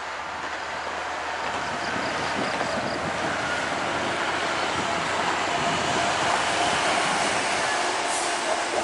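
Mercedes-Benz OH 1626 coach driving past on a highway: a steady rush of engine and tyre noise that builds slowly and peaks shortly before the bus goes by.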